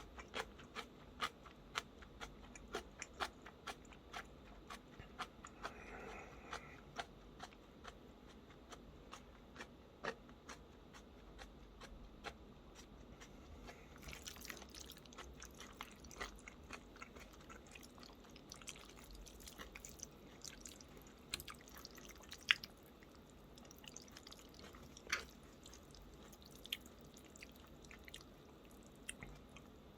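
A person chewing food close to the microphone: many short, sharp mouth clicks and crunches, most frequent in the first few seconds.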